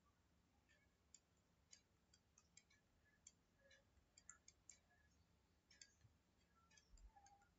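Faint, irregular clicks and taps of a stylus on a tablet screen as words are handwritten, a few sharp ticks a second at no steady rhythm.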